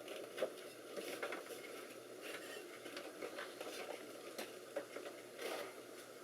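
Faint scattered clicks and light rustling of hands handling computer parts, over a low steady hum.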